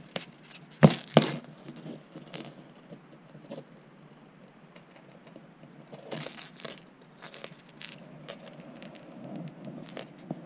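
Small metallic clicks and jingles from a crankbait's treble hooks and split rings as the lure is spun around the fishing line and the knot is drawn tight. The two sharpest clicks come about a second in, and a cluster of clinks follows around six seconds in.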